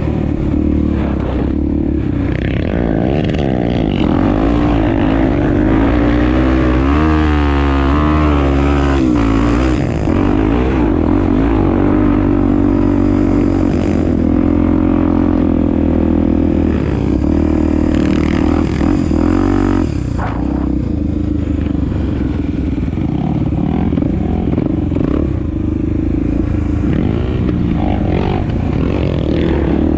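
Honda Tornado's single-cylinder four-stroke engine running under way, its pitch rising and falling as the throttle changes, most noticeably about a third of the way in and again around two-thirds through.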